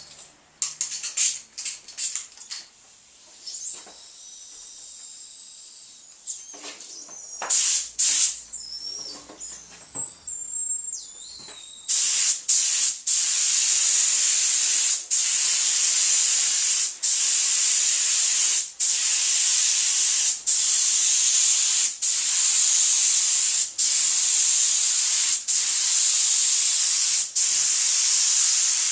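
Paint spray gun hissing as a coat of paint goes onto a van's sliding door, the spray stopping briefly about every second and a half to two seconds between passes. Before it starts, partway through, there are scattered clicks and a high whistling tone.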